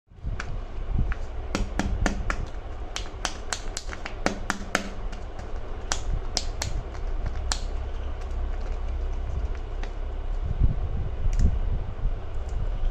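Sharp plastic clicks and snaps from Kinder Joy eggs being handled and opened, coming quickly at first and then more sparsely, over a steady low rumble.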